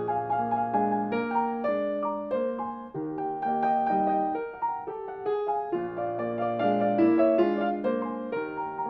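A restored 1961 Broadwood baby grand piano being played: a flowing passage of chords and melody, with a held low bass note near the start and again a little past the middle.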